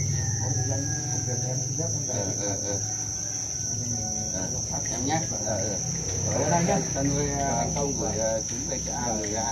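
Many farmed black crickets chirping together in one steady, unbroken high trill, with people talking indistinctly underneath.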